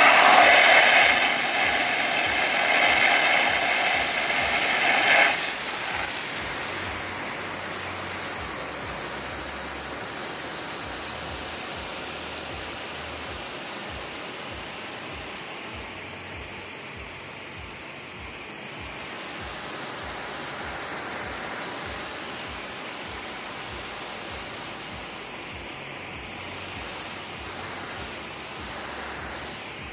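Water spraying onto a grass lawn during watering, a steady hiss that is loud for about the first five seconds, then drops suddenly to a softer, steady hiss.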